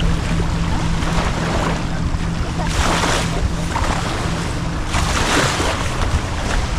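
Water splashing in two hissing surges about two seconds apart, over a steady low engine hum and wind on the microphone.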